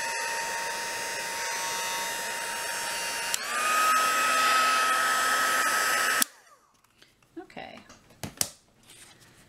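Craft heat gun running with a steady whine and rush of air. About three seconds in its pitch steps up and it gets louder. It switches off with a click about six seconds in.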